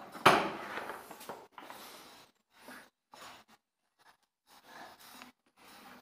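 Plastic latch clip on a Prestige Typhoon 05 wet & dry vacuum cleaner released with a loud clack, followed by a string of faint plastic scrapes and knocks as the motor head is lifted off the drum; the motor is not running.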